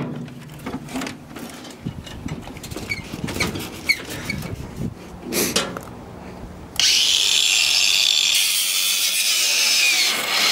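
Sheet-metal panels of a scrapped drive cabinet clanking and rattling as they are wrenched about. About seven seconds in, a cut-off wheel starts grinding through metal, a steady high-pitched hiss that lasts about three and a half seconds and stops suddenly, cutting through the cabinet's ground wire.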